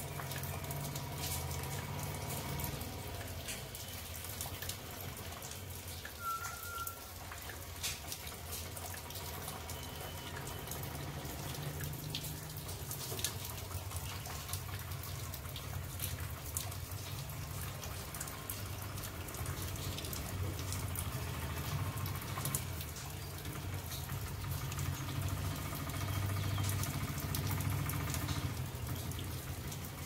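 Rainwater pouring off a roof terrace and splashing steadily, with light rain dripping and pattering in many small drops.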